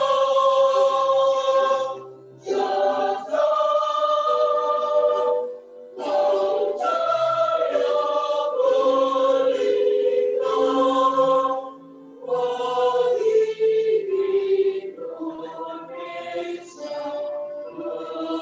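A choir singing a slow anthem in long held notes, with a few brief pauses between phrases.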